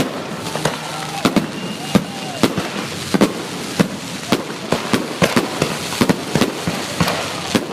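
Fireworks display going off in a rapid, irregular string of sharp bangs and pops, several a second, over a continuous background rumble and crackle.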